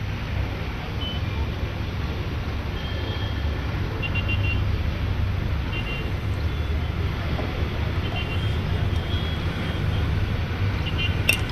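Outdoor ambience of distant road traffic: a steady low rumble, with a few short high-pitched tones, like faint horn toots, scattered through it.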